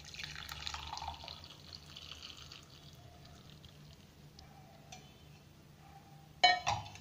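Hot milky kashaya poured from a steel pan through a wire-mesh tea strainer into a steel tumbler, splashing for about two seconds, then thinning to a trickle and drips. Near the end, one sharp ringing clank of steel utensils.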